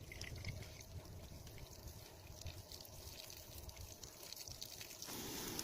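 Water pouring in a thin, trickling stream, with a steadier hiss setting in near the end.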